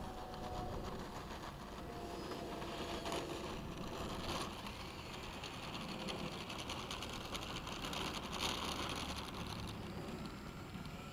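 Propeller and motor of an RC Focke-Wulf Fw 190 model plane taxiing on asphalt: a steady mechanical whirring rush with scattered clicks.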